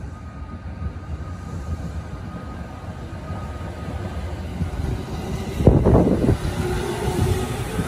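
JR East 209 series electric train running into the station along the platform. Its rumble grows as it approaches, with a sudden loud rush about six seconds in as the front car passes close by.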